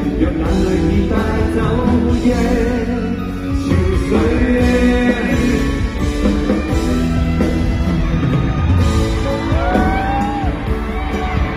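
Live concert band music with singing, a Cantopop ballad played at full volume.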